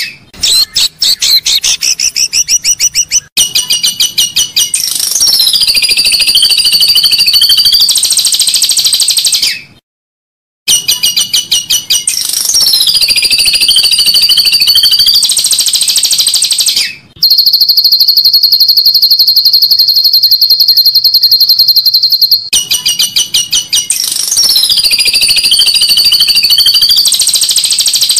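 Recorded songbird song played as a murai batu (white-rumped shama) training master: the same phrase, a run of rapid chips and then a falling, wavering whistle, repeats three times. In the middle a steady, fast, high trill runs for about five seconds.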